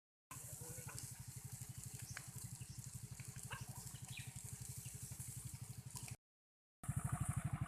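Small engine idling with a steady, rapid low throb and a few faint clicks over it. The sound cuts out completely twice, once just at the start and once about six seconds in.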